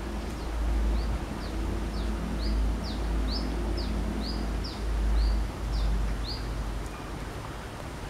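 Brown-throated sunbird singing a run of about a dozen short, thin, high chirps, roughly two a second, alternately sliding down and up, over a low rumble.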